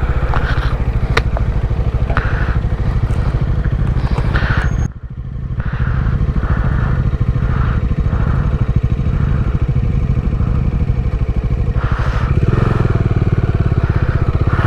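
Bajaj Dominar 400's single-cylinder engine running steadily while riding, a fast even pulsing with strong low rumble, with a brief dip in level about five seconds in.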